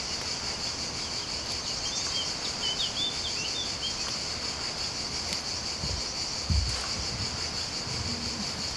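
Steady, high-pitched insect chorus running without a break, with a few short bird chirps about two to three seconds in. A couple of soft low thumps come near the six-to-seven-second mark.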